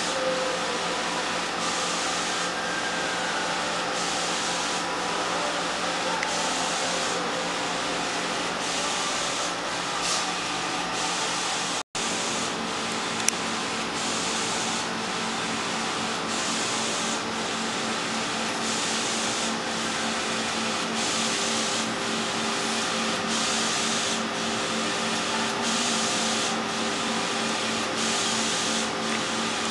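Wide-format inkjet printer printing a poster: the print-head carriage sweeps back and forth with a swish about every one and a half seconds, over a steady hum. The sound cuts out for an instant about twelve seconds in, and a single click follows a moment later.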